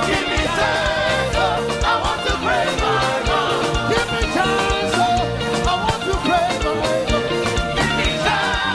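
Live gospel praise band playing an upbeat song with a steady drum beat, with voices singing over it.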